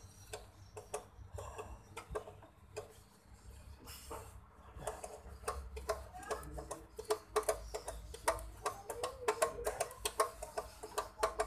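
Quick metallic clicks and ticks from an M5 hand tap being turned by hand in a drill-press chuck, threading an aluminium reel frame, thickening into a rapid run of clicks in the second half. Hens cluck in the background.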